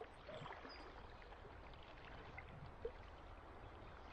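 Faint, steady rush of river water flowing past, with a few light ticks, one a little louder about three seconds in.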